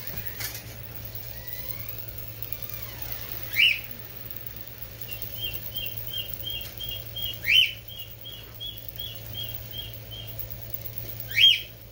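Pet bird calling: three loud, short rising whistles about four seconds apart, with a run of quick short chirps, about four a second, starting after the first whistle and going on past the second.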